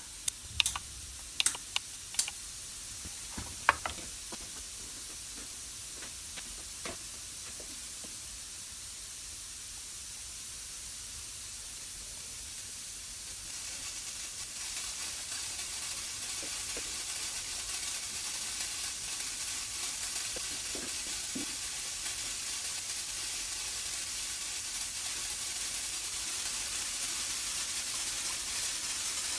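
Steady hiss of the graffiti-removal robot's paint spray gun, starting suddenly as it is switched on, with a few sharp clicks in the first few seconds. The hiss grows louder a little under halfway through.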